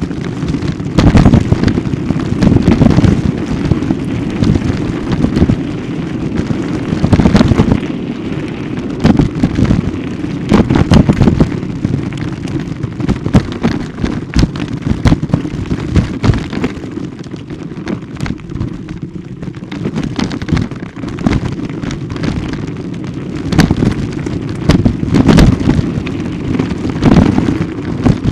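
Loud, continuous rumble with frequent irregular knocks and jolts from a ride over a bumpy forest dirt track, with wind buffeting the microphone.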